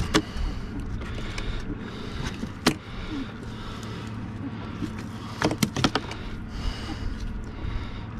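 Sharp knocks and clicks from a freshly caught gafftopsail catfish being unhooked and handled on a fiberglass boat deck, with a cluster of them about five and a half seconds in, over a steady low hum.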